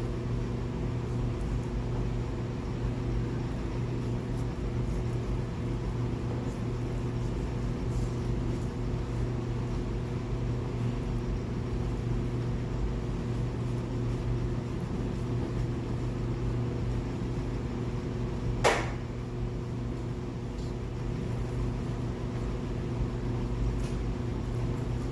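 A steady low mechanical hum, like a fan or ventilation unit running, with one sharp clink that rings briefly about three-quarters of the way through.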